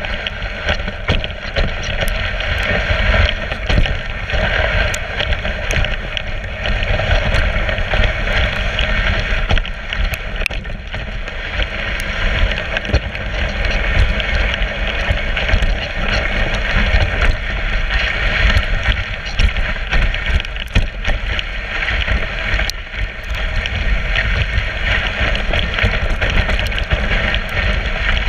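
Dog sled gliding over a snowy trail: the runners give a steady hiss and rumble on the snow, with scattered small clicks and knocks from the sled, and wind on the microphone.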